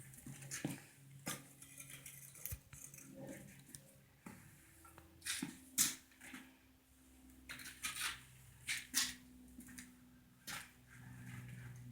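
Irregular metallic clinks and knocks of metal pieces being handled, the loudest about six seconds in and a few more around eight to nine seconds, over a faint steady low hum.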